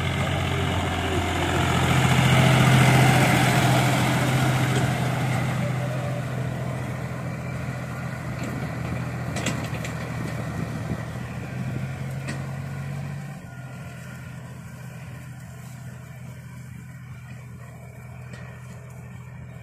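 John Deere 5050 tractor's three-cylinder diesel engine running steadily under load while pulling a seven-foot laser land leveler. It is loudest about three seconds in as the tractor passes close, then fades as it moves away, dropping a step about thirteen seconds in.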